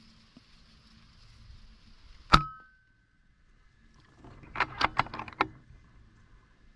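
A single air rifle shot a little over two seconds in: a sharp crack with a brief ringing afterward. About two seconds later comes a rapid run of about six sharp clicks and knocks.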